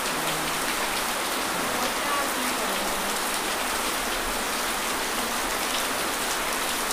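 Steady rain falling on a muddy dirt yard and into puddles, an even hiss.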